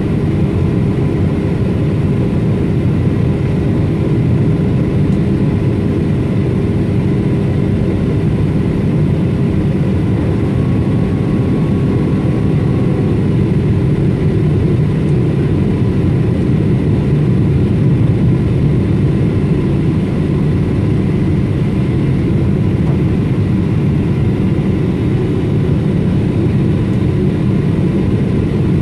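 Jet airliner cabin noise on the approach to landing: the engines and rushing airflow make a steady low rumble, with a faint steady hum over it.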